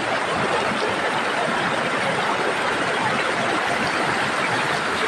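Waterfall cascade: white water rushing and splashing over rocks in a steady, even rush.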